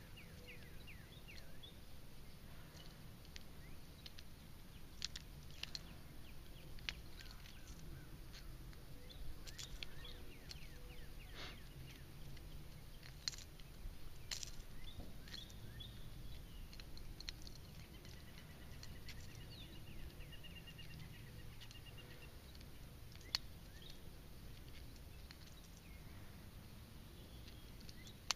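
Faint outdoor ambience: scattered bird chirps over a low steady rumble, with a few sharp clicks, the loudest about thirteen, fourteen and twenty-three seconds in.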